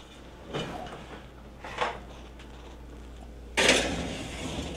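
Oven door opening with light clunks, then about three and a half seconds in a loud metallic scrape and clatter as the lidded stainless stockpot goes onto the oven rack.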